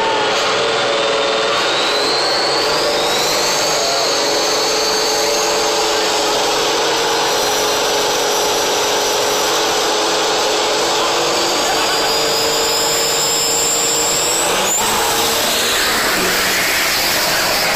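Triple-turbocharged diesel engine in a Ford Mustang running hard under acceleration, loud, with a high turbo whine that rises in pitch over the first few seconds and holds. The whine climbs again and breaks off about fifteen seconds in.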